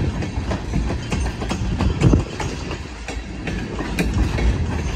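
Freight train of tank cars rolling past on steel rails, its wheels clicking again and again over a steady low rumble.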